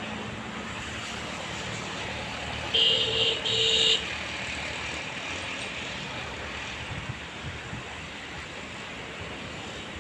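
Diesel locomotive horn giving two short blasts in quick succession about three seconds in, from an approaching train, over a steady low rumble.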